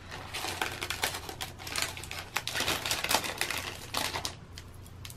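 Clear plastic packaging crinkling and crackling as hands handle it, a dense run of rapid small clicks that stops about four seconds in.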